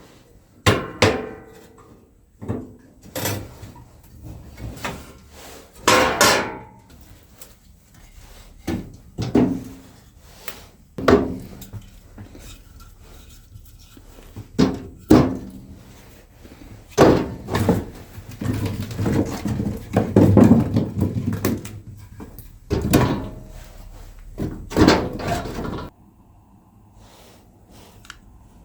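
A series of irregular knocks and clunks of objects being handled and set down, busiest a little past the middle, then cutting off suddenly to a low steady background near the end.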